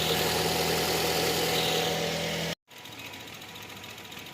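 Toyota Corolla Altis's 1.8-litre four-cylinder engine idling steadily, running again after the no-start was cured by bypassing the tracker relay with a jumper wire. The sound cuts off abruptly about two and a half seconds in and comes back quieter.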